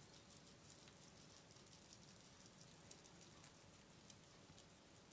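Two guinea pigs eating fresh basil leaves: faint, irregular little clicks of chewing and nibbling at the leaves.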